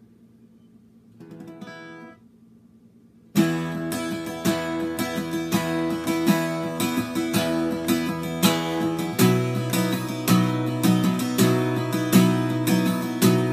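Steel-string acoustic guitar with new D'Addario EXP19 coated strings in E standard tuning. It sounds a brief soft note about a second in, then from about three seconds in plays rhythmic chords steadily.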